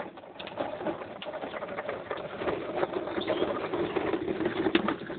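Child's plastic pedal tractor rolling across paving slabs, its hard plastic wheels rattling and grinding with many small clicks.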